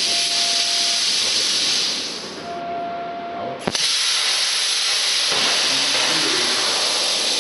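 Steady, loud hiss of rushing air with a thin high whine over it. It falls away for about a second and a half near the middle, then comes straight back with a sharp click, as if an air valve shut and reopened.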